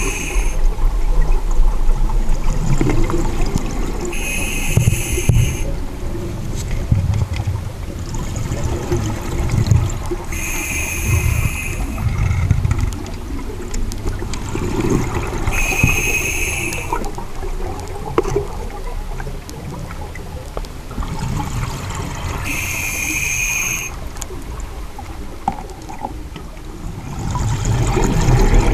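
A scuba diver breathing underwater through a regulator. A hissing inhalation comes about every six seconds, and between breaths the exhaled bubbles rumble and gurgle.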